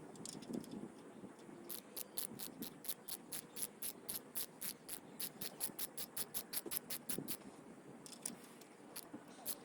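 Socket ratchet clicking in a fast, even run of about four or five clicks a second for some five seconds, then a few scattered clicks near the end, as a new spark plug is run down into its hole.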